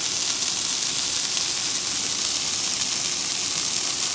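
Oiled zucchini halves sizzling on the hot grate of a Weber Q 2400 electric grill: a steady hiss.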